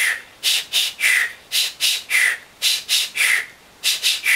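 Beatboxer repeating a breathy, voiceless 'hi-hi-hyuu' about four times, each time two short hisses and then a longer one that falls in pitch. This is the mouth-shape drill for a human-beatbox scratch sound.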